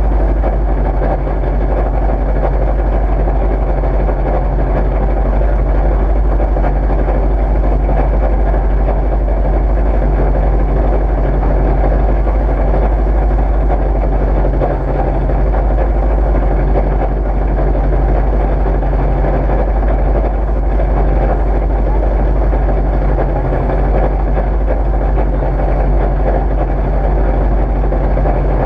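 Rally car engine idling steadily, heard from inside the caged cabin while the car stands still.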